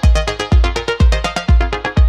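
Electronic dance music: a deep kick drum on a steady beat about twice a second, under a quick run of synthesizer notes.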